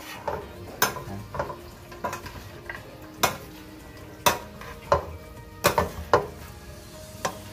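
Metal spoon and serving spoon stirring and tossing chopped grilled pork, onions and chilies in a stainless steel pan, with irregular clinks and scrapes against the pan about once or twice a second.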